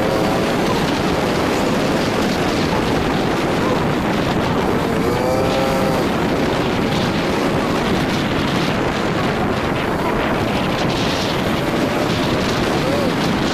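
Steady wind buffeting the microphone over the running noise of a road vehicle on the move. A brief wavering pitched sound comes about five seconds in.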